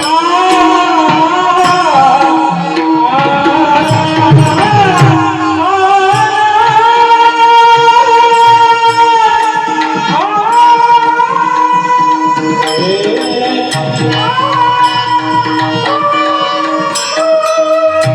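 Marathi kirtan singing in slow 'thayi' tempo: a solo voice holds long, ornamented notes that slide up into each phrase. Tabla plays underneath, over a steady drone.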